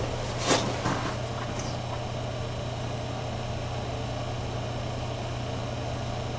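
Steady low hum with a constant background hiss, and a couple of brief clicks about half a second in.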